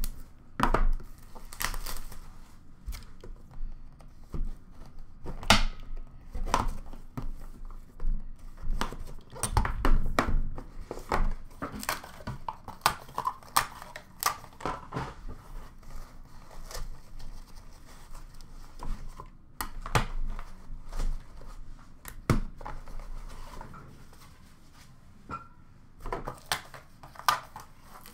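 Plastic shrink-wrap being cut with a knife and torn off a sealed box of trading cards, with crinkling and tearing. Then the box is opened and hard plastic card cases are handled, with scattered sharp clicks and knocks.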